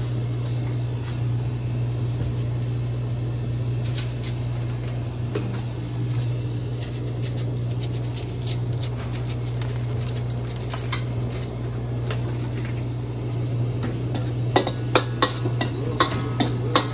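Crabs being stir-fried in a pan, with a utensil scraping and clinking against the pan over a steady low hum. A quick run of sharp clinks comes near the end.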